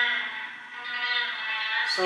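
Music playing back from an 8-track tape cartridge in an opened-up 8-track player, with steady held notes.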